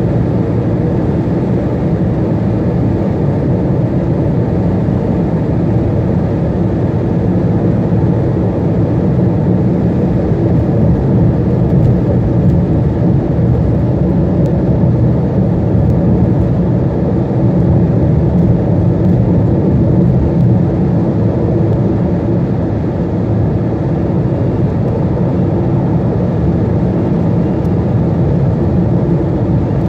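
Steady low rumble of a vehicle cruising at highway speed on a paved road, with no changes in speed.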